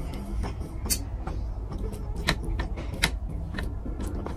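Bare fingers mixing and squeezing rice with fish curry on a plate: wet, sticky squelches and clicks, a few of them sharp, over a steady low rumble.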